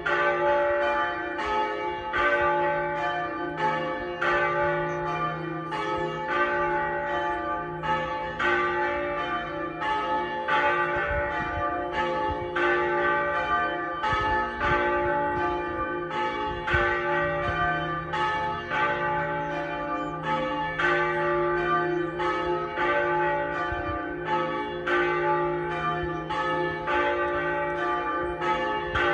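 Pershore Abbey's tower bells ringing, with fewer than half of the bells in use: an even sequence of strikes, about three a second, each note ringing on into the next.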